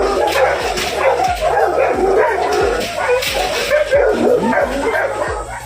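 A litter of eight-day-old Cane Corso puppies whimpering and yelping, with many thin, overlapping cries throughout.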